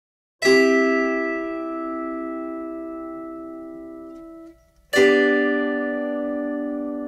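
Chords plucked on a Hanago, a single-fretted zither-like string instrument. The first chord starts about half a second in and fades for about four seconds before it stops. A second chord is struck about five seconds in and rings on.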